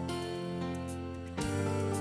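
Gentle instrumental music with sustained notes, the introduction to a song; a new chord comes in about one and a half seconds in.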